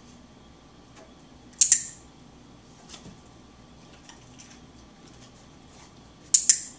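Handheld dog-training clicker clicked twice, about five seconds apart. Each click is a sharp double click-clack, marking the moment the dog noses the sock in a shaping session.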